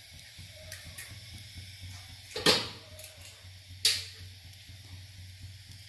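Faint steady hiss of a low gas burner heating oil in a coconut shell, broken twice by sharp knocks about a second and a half apart.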